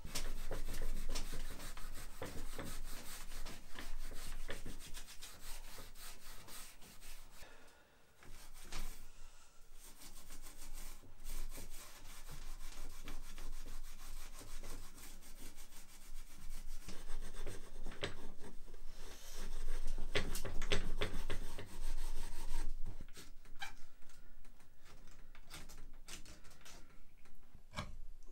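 Hand sanding the bare wooden frame of an old chair, a dry scratchy rubbing in many quick back-and-forth strokes that takes off the old varnish and splintered surface. It pauses briefly about eight seconds in and is loudest a little after the middle.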